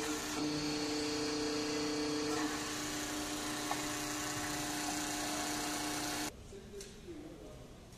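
Steady whine of a workshop machine's electric motor, a low hum with higher steady tones that shift a little about two and a half seconds in; it cuts off suddenly about six seconds in.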